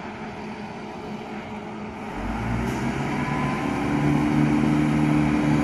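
Class 170 Turbostar diesel multiple unit pulling away from a station stop under power. A low engine rumble builds about two seconds in and settles into a steady, louder drone with a held tone.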